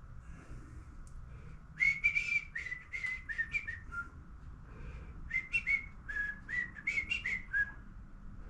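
Whistling: two short phrases of quick pitched notes, the first about two seconds in and the second about five seconds in.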